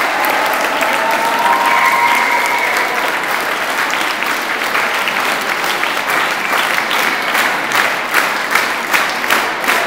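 Audience applauding, with a few voices cheering in the first seconds. Near the end the applause turns into rhythmic clapping in unison, about two claps a second.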